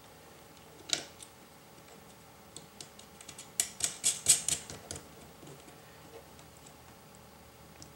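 Light clicks and taps of metal parts being fitted by hand: an aluminium crossbar and its bolts set against a metal TV-mount frame. One click about a second in, then a quick run of clicks for a couple of seconds.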